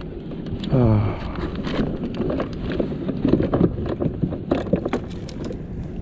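Light knocks and taps on the plastic deck of a fishing kayak, most likely a small pinky snapper flapping on it, over wind on the microphone. About a second in there is a short sound, falling in pitch, that is likely the angler's voice.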